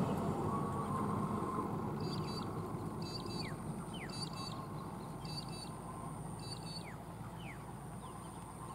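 A road-rail truck running along the railway track and moving away, its low rumble fading steadily. Over it a bird calls, a short double chirp repeated about once a second from about two seconds in, with a few downward-sliding whistles.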